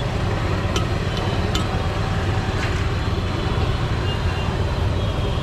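Battered spiral potato skewers deep-frying in a wok of hot oil, sizzling over a steady low rumble, with scattered light metallic clicks.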